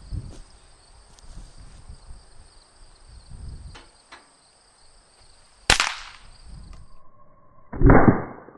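A powder-only squib-clearing charge, about the equivalent of a blank, fired in a Hi-Point pistol: one sharp crack about two-thirds of the way in. Near the end comes a second, deeper and duller boom, the same shot replayed in slow motion.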